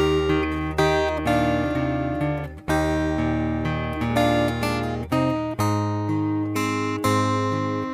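Instrumental music on acoustic guitar: picked notes that ring and die away, several a second, over a sustained low bass.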